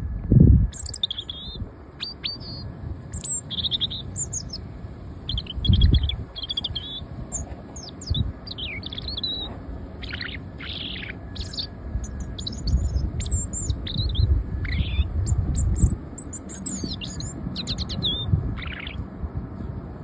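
European robin singing: high, thin warbling phrases with short pauses between them. Low rumbling thumps on the microphone, the loudest about half a second in and again around six seconds in.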